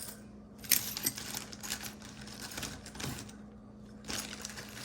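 Costume jewelry being handled: beads and small metal pieces clicking and clinking together in quick clusters, with a sharp click about three quarters of a second in and a short lull a little past three seconds.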